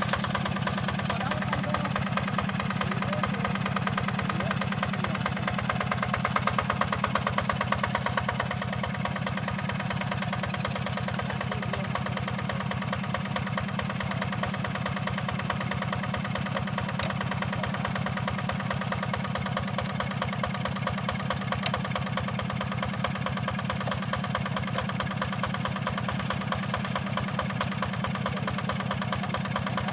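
Yanmar diesel engine of a hand tractor running steadily with a fast, even beat, a little louder about six to eight seconds in.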